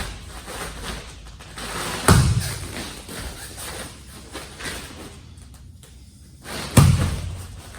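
Three dull, heavy thumps from a karate drill being demonstrated, one at the start, one about two seconds in and one near the end, each dying away quickly.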